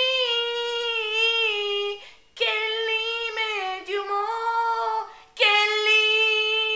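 A woman singing unaccompanied: three long, loud held notes with a wavering vibrato, each broken off by a short pause for breath.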